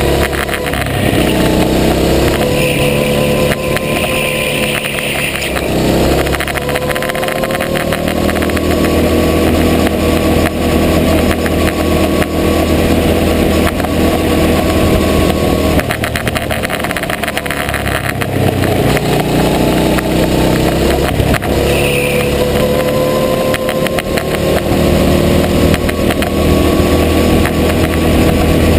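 Go-kart engine heard from on board, running loud and continuously, its revs falling off several times into corners and climbing again as the kart accelerates out.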